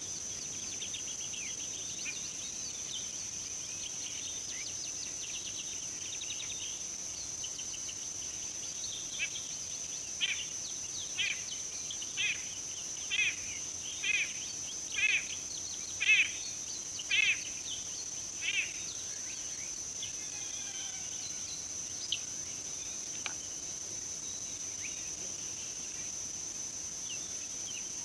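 Wild bird giving a series of about nine short trilled calls, roughly one a second, growing louder then fading, over a steady high insect drone, with fainter bird chirps scattered around it.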